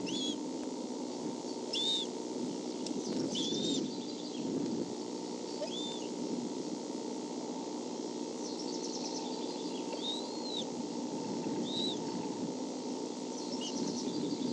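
Bald eaglet's short, high peeps that rise and fall, about one every two seconds, over a steady low hum.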